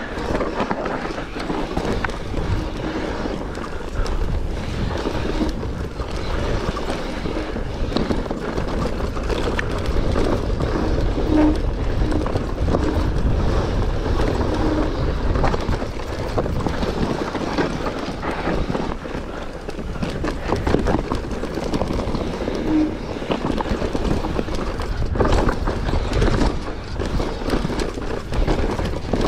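Mountain bike descending loose, rocky singletrack at speed: a continuous rough rumble of tyres over dirt and rock, broken by many small clicks, knocks and rattles from the bike.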